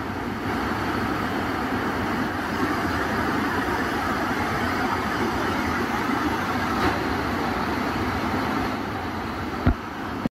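Floodwater pouring over concrete weir and spillway steps: a steady rushing noise, with one short low thump near the end.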